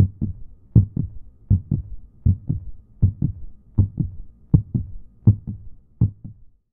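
Heartbeat: a steady lub-dub double beat, about eighty beats a minute, the first thump of each pair the louder. It stops shortly before the end.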